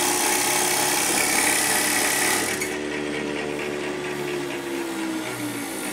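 Motor-driven milk separator spinning at high speed with a whirr and hum. About two and a half seconds in the high hiss drops away and the pitch slowly falls as it slows down.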